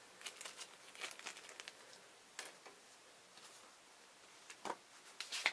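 Faint, scattered crinkling and light clicks of a clear plastic bag being handled, busiest in the first second or so, with a few more crackles near the end.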